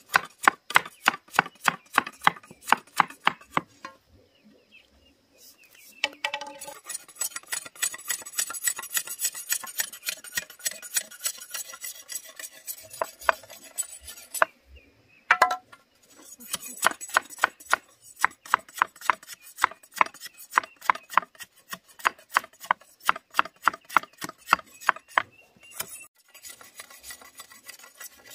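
A knife or cleaver chopping on a wooden board in a fast, even rhythm, about four to five chops a second, with a few brief pauses.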